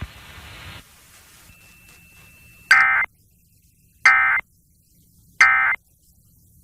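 Emergency Alert System end-of-message data code: three short, identical bursts of high warbling digital tones, about a second and a half apart, marking the close of the alert.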